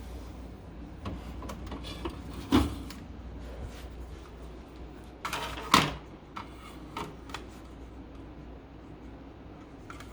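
A few knocks and bumps over a steady low hum, with the two loudest bumps about two and a half and six seconds in.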